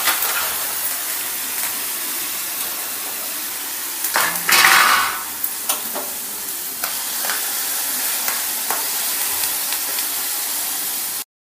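Hot oil sizzling in a steel kadai around ground tamarind and red chilli chutney tempered with dried red chillies and curry leaves, with a louder surge of sizzling about halfway through. A spoon stirs the pan and clicks against the steel now and then, and the sound cuts off suddenly near the end.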